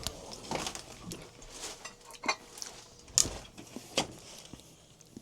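A plate being fetched and set down: several separate clinks and knocks of crockery, the sharpest about three seconds in.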